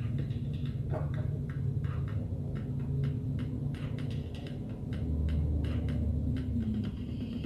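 Instrumental music beat playing through a bare loudspeaker driver wired straight to a phone's headphone output with no amplifier: a steady ticking percussion about twice a second over low bass.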